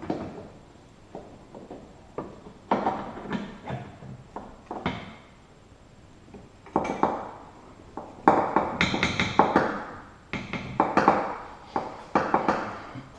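Irregular knocks, taps and clatter of metal as a new lower control arm bushing is worked onto the control arm and seated in its mount. The busiest run of knocks comes about eight to ten seconds in.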